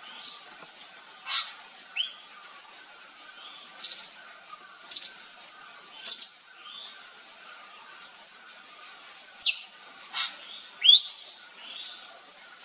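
Javan fulvetta calling: short, sharp, high notes that drop in pitch, given singly or in quick pairs at irregular intervals, the loudest near the end.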